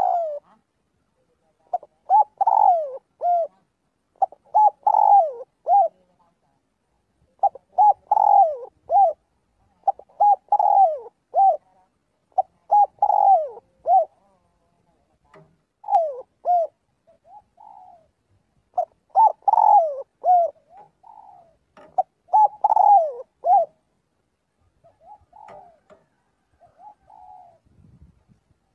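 Spotted dove cooing: short phrases of a few throaty coos, repeated every two to three seconds, with fainter coos in some of the gaps.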